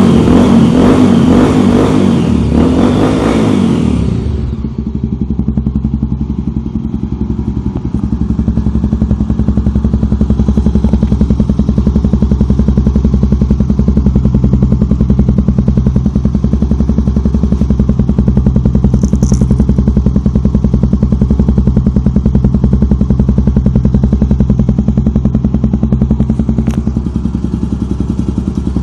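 Honda Tornado 250's single-cylinder four-stroke engine through a Yoshimura aftermarket exhaust, held at high revs for about the first four seconds, then dropping back to a steady idle that runs on for the rest.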